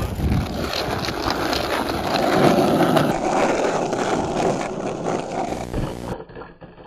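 Skateboard wheels rolling over rough, cracked asphalt: a continuous gritty rolling rumble that drops quieter about six seconds in.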